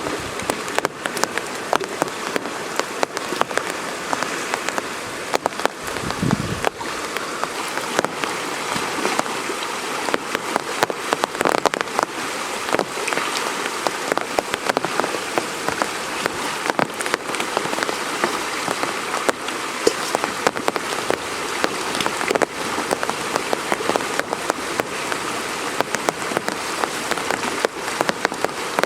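Steady rain falling, with many separate drops striking close by. A brief low thud about six seconds in.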